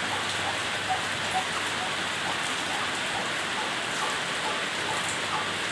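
Steady rain falling, an even hiss throughout, with faint short pips scattered through it.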